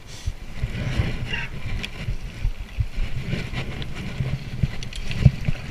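Mountain bike riding over a rough dirt trail: a steady low rumble of wind and tyres on the camera's microphone, broken by frequent short knocks and rattles as the bike jolts over bumps.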